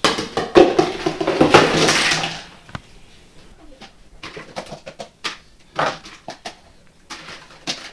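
A pile of plastic food-storage containers and lids tumbling out of a cabinet and clattering onto a wooden floor, a dense rattle for about two and a half seconds. Then scattered light plastic clicks and taps as the containers are picked up and lids tried on them.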